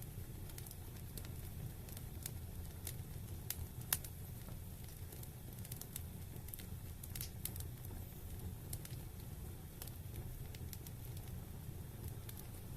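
Wood fire burning in a fireplace: scattered sharp crackles and pops over a steady low rumble, with one louder pop about four seconds in.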